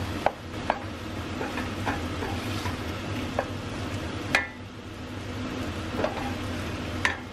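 Wooden spoon stirring mushroom risotto in a stainless steel sauté pan over a soft sizzle. The spoon knocks against the pan every second or so, loudest about four seconds in.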